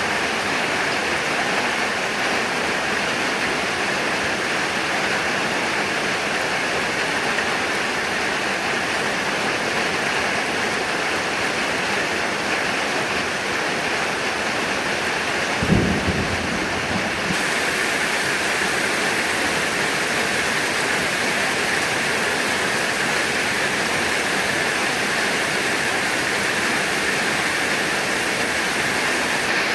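Heavy rain falling steadily, a dense even hiss. About halfway through comes a single short, low boom.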